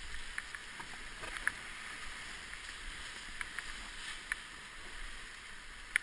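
Whitewater rapids rushing around a paddled raft, a steady rush of water with scattered short sharp splashes and knocks from the paddle strokes.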